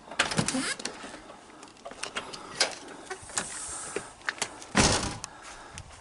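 A series of irregular clicks, knocks and rubbing, with a louder scraping rush about five seconds in.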